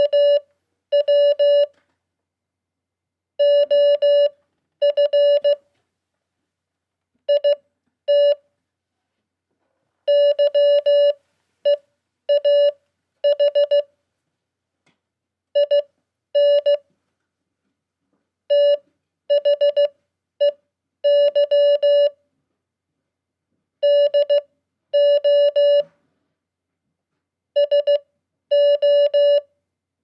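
Morse code (CW) tone: one steady beep keyed into dots and dashes at 15 words per minute. It spells out the common QSO words KNOW, OF, IT, YEAH, IN, THEY, DO, SO letter by letter, with silent gaps between letters and longer ones between words.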